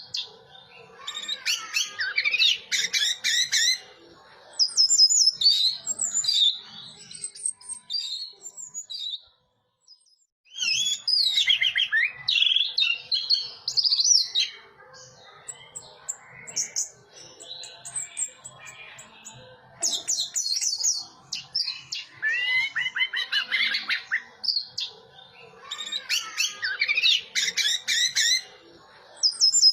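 Orange-headed thrush singing: bursts of rapid, varied high notes lasting a few seconds each, separated by short pauses, with a brief silence about nine seconds in.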